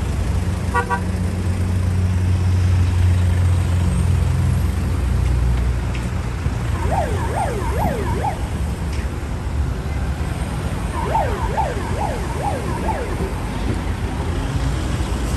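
Steady vehicle rumble and road noise, with a siren giving two short runs of quick rising-and-falling yelps, about seven seconds in and again about eleven seconds in.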